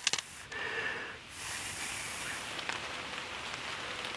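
A ferrocerium rod scraped sharply a few times with a striker, throwing a shower of sparks onto tinder, followed by two long hissing puffs of breath blown on the smouldering tinder. Light rain pattering steadily underneath.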